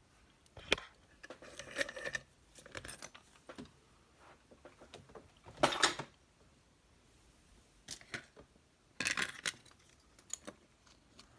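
Small metal clicks and rattles from a pin-tumbler padlock being handled and taken apart, with a louder rattle about halfway through and a quick cluster of clicks near the end.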